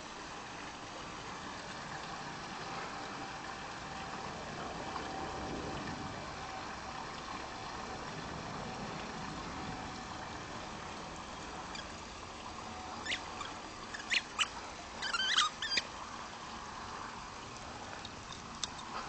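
Steady background hiss, with a cluster of short, sharp animal calls about two-thirds of the way in, followed by one more near the end.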